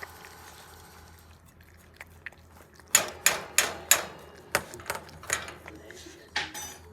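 A run of about ten sharp, irregular clicks and taps. They start about three seconds in, after a quiet stretch.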